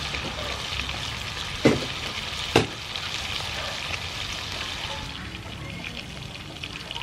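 Pork rib pieces sizzling in hot oil in a frying pan, with two sharp metal clacks of tongs against the pan about two and three seconds in.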